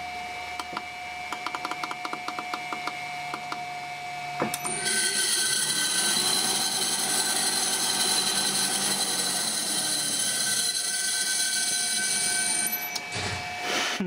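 Salvaged Simpson washing-machine motor running as a three-phase motor from a variable frequency drive. For the first few seconds there is a steady whine with a brief run of quick ticks. About five seconds in it jumps to a much louder machine sound, several steady high tones over a hiss, which cuts off about a second before the end.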